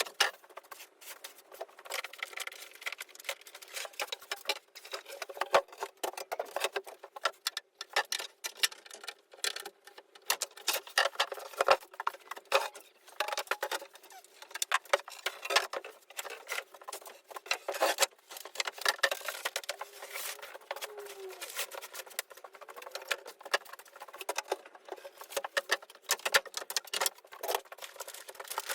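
A dense, irregular run of small clicks, taps and rattles with no voice.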